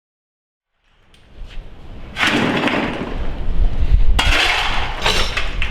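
Hard objects clattering and crashing in loud bursts, about two seconds apart, with clinks between them and a low rumble underneath.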